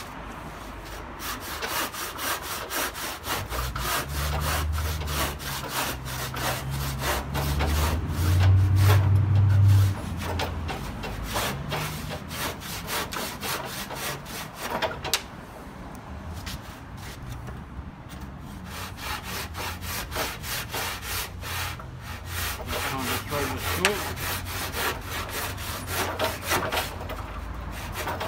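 Handsaw cutting through a plaster cornice moulding in repeated back-and-forth strokes, with a short lull in the middle. A low rumble comes in about four seconds in and is loudest around nine seconds.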